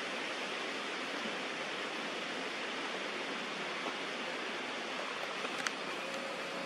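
Steady, even background hiss with no voices, and a faint click about five and a half seconds in.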